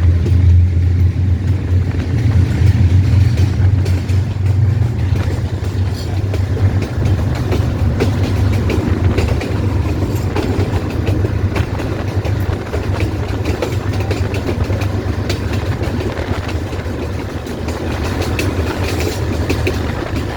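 Pakistan Railways GEU-20 diesel-electric locomotive running with a passenger train: a steady, loud low engine drone, with scattered clicks of the wheels over the rail joints.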